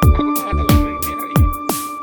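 Background electronic music with a steady beat: kick drums and snare hits under sustained synth tones.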